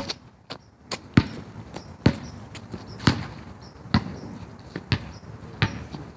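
A basketball being dribbled on an outdoor court, bouncing at a steady pace of about one bounce a second.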